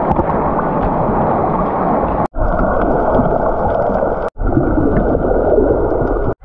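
Loud churning, sloshing sea water close to the microphone, in three short clips cut together, each cut ending in a sudden dropout.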